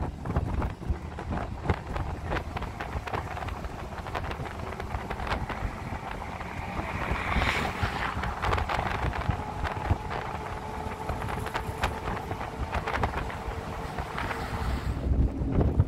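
Wind buffeting the microphone over the running and road noise of a moving pickup truck, with frequent short knocks and rattles from its metal cargo bed. A faint steady whine sits under the noise in the second half.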